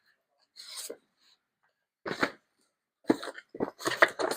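Cardboard boxes and packing being handled and rummaged through. There are a few separate scuffs and knocks, then a quick run of them near the end.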